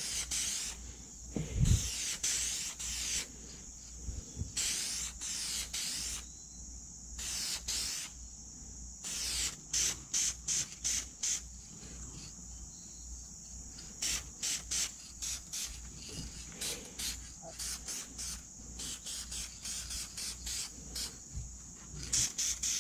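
Aerosol spray can of varnish hissing in repeated bursts, a few longer sprays at first, then many short quick puffs. A steady high insect chirring runs underneath.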